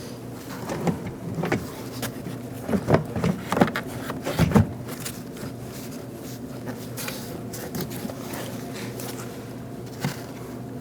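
Plastic interior door trim panel being handled and hooked onto the top edge of the door: a few short knocks and rattles in the first half, the loudest about four and a half seconds in, over a steady hum.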